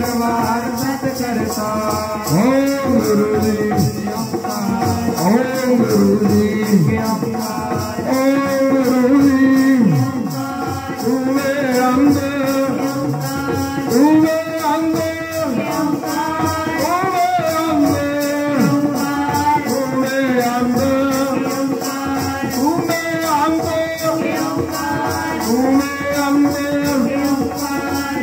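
Devotional kirtan music: a harmonium melody with a gliding sung line over a fast, even rattling percussion beat.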